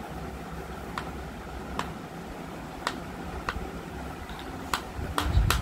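Sharp clicks or taps, seven or so, unevenly spaced about a second apart, over a steady low hum. Just before the end come a louder low rumble and a few clicks close together.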